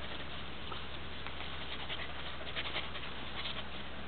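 Faint scuffing steps on dry dirt, with a few short ticks clustered in the second half, over a steady hiss and low hum.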